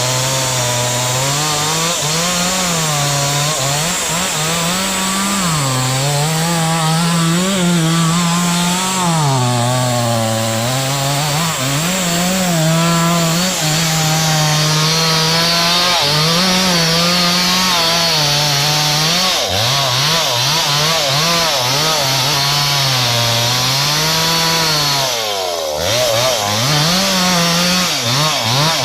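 Two-stroke chainsaw cutting through a large sengon trunk. The engine pitch rises and sags every few seconds as the chain loads in the wood, and near the end it drops sharply for a moment before revving back up.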